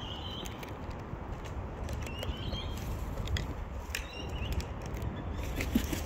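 Cockatoos and brush-turkeys feeding at seed buckets: scattered clicks and taps of beaks pecking seed against plastic, with a few short high chirps in the first half over a steady low rumble.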